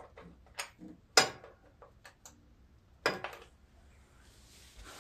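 A handful of sharp metallic clicks and clinks as metal parts are handled under the mower, the loudest about a second in, with a soft rustle near the end.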